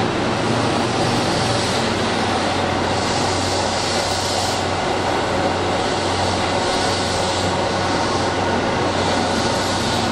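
Keihan 3000 series electric commuter train running past along an underground station platform: a steady rolling rumble with a low hum, and a hiss that swells and fades about every second and a half as the cars go by.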